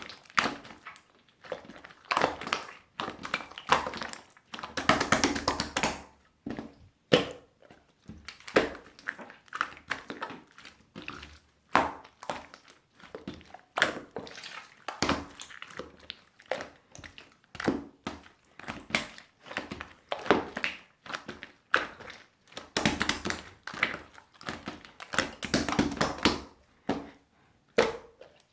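Hands squeezing and stretching a melted, runny opaque slime, giving off irregular sticky clicks and squishing sounds in bursts.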